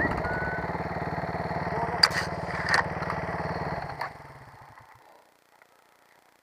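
Off-road motorcycle engine idling with a steady pulse, with two sharp knocks about two seconds in, then the engine stops about four seconds in.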